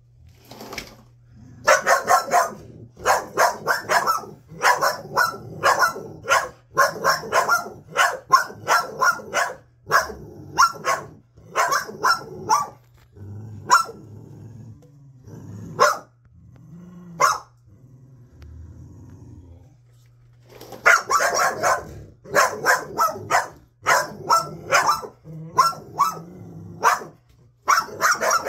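Pit bull-type dogs barking over and over in quick runs of short barks, with a sparser stretch of barks in the middle.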